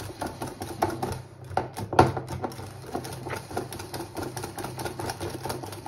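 Wire balloon whisk beaten by hand through thick pastry cream as butter is worked in: rapid, irregular clicking and tapping of the wires against the bowl, sharpest about two seconds in, over a steady low hum.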